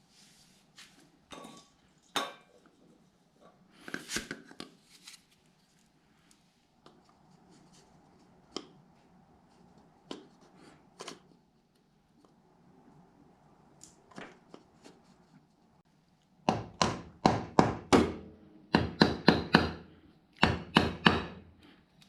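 Scattered tool clinks and knocks, then from about three-quarters of the way in three quick runs of sharp hammer-like strikes, about four or five a second, which are the loudest sound.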